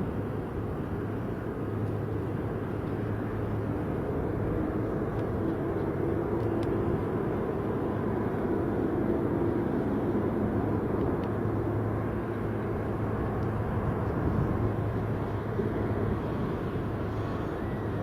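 Jet airliner engines, a steady rumble with a faint low hum, growing a little louder over the first several seconds and then holding.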